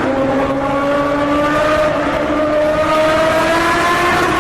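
Motorcycle engine running under load, its pitch climbing slowly and steadily as it accelerates.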